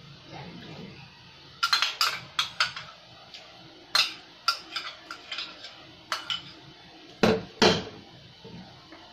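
A small cup and a wooden spatula clinking and knocking against a frying pan as tomato paste is added to the sauce and stirred in: a quick run of knocks about two seconds in, a few spaced taps after, and two louder knocks near the end.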